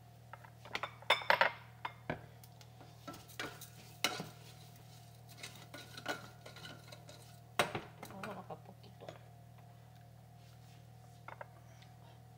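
Spatula stirring rice in a stainless steel saucepan, scraping and knocking irregularly against the metal. The clacks are loudest about a second in and again a little past the middle, and die down for the last few seconds.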